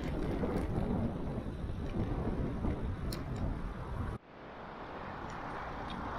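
Wind buffeting the action camera's microphone while cycling, mixed with city road and traffic noise. About four seconds in, the low rumble drops off abruptly, leaving a steadier, quieter hiss.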